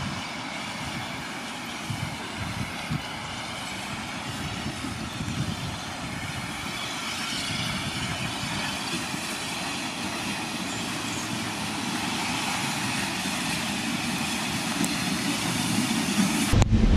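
Steam locomotive running slowly along the track towards the listener, a steady noisy wash that grows gradually louder. Just before the end it cuts suddenly to a loud low rumble.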